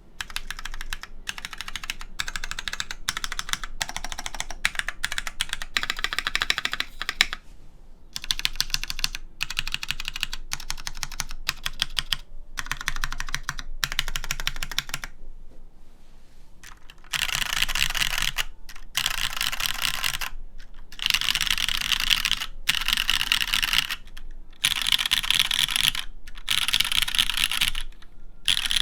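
Typing on a Duck Jetfire custom mechanical keyboard with Cherry MX Black linear switches in a top-mounted aluminium full plate and GMK keycaps: fast runs of keystrokes in bursts of a second or two with brief pauses, the typing getting louder and brighter a little over halfway through. The letter keys are a tad sharp-sounding.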